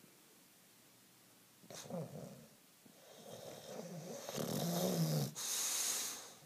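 Young bulldog snoring in her sleep: a short snuffle about two seconds in, then one long rasping snore that builds in loudness, followed by a breathy hiss that stops near the end.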